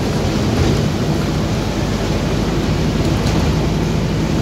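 Scania OmniCity double-decker bus under way, heard from inside the cabin: its diesel engine running together with road rumble, a steady low drone.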